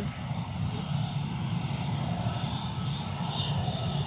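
Jet engines of an easyJet Airbus A319 airliner running steadily at low power on the ground.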